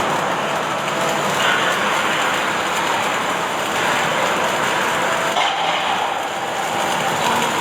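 Automatic welding machine running, with a steady, dense hiss from the welding arc.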